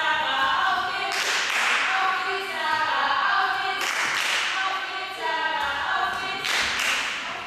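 Spectators chanting and calling out together, several voices held on long, rising and falling notes, broken about three times by short noisy bursts.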